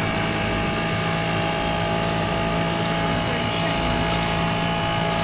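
A small passenger boat's engine running steadily under way, a constant drone at an unchanging pitch over a steady hiss of water and wind.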